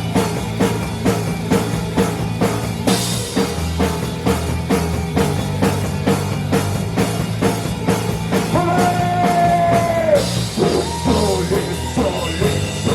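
Live rock band playing: drum kit on a steady beat of about two hits a second under heavy, low guitar chords. A long held note bends down at its end about nine seconds in, and cymbals crash in brighter after it.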